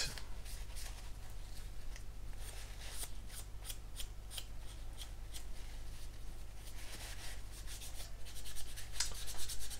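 White tissue rubbing over a plastic model engine cowling, wiping off excess enamel wash: a run of quick, soft wiping strokes.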